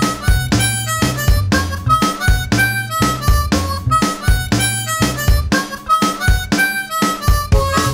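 Music with a steady beat, a bass line and a melody of held notes.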